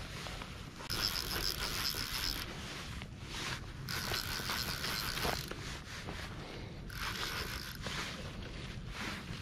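Fly reel's click-and-pawl drag ratcheting in three stretches of a second or so, with pauses between, as line runs off or is wound on while a hooked fish is played on a bent rod. A steady low rumble of wind and water runs underneath.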